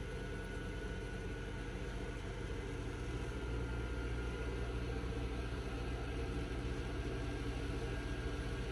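Engine of a paddy-threshing machine running steadily, growing a little louder about three seconds in.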